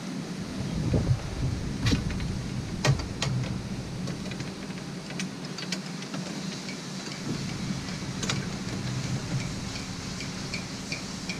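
Wind buffeting the microphone in a steady low rumble. Over it come a few sharp clicks and knocks as a metal pole is handled and fitted: the loudest are about two and three seconds in, and another comes near eight seconds.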